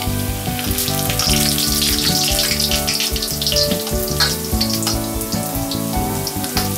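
Slices of bread and whole garlic cloves sizzling as they fry in hot oil in a deep pan, with sharp crackles here and there.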